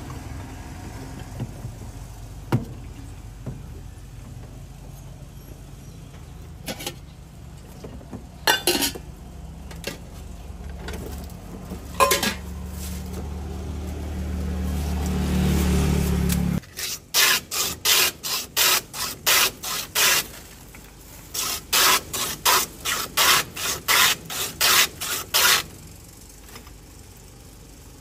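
A block of ice pushed by hand back and forth over the blade of a wooden ice-shaving box, scraping off shaved ice in quick rasping strokes. There are two runs of strokes, about two to three a second, with a short pause between them. Before the strokes, a steady low motor hum with a few clinks of glass cuts off suddenly partway through.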